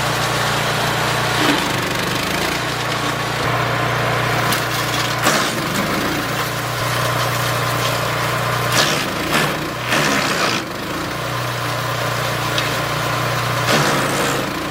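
Small wood chipper with a 5.5 horsepower petrol engine running steadily, with irregular cracks and snaps as branches are fed in and shredded.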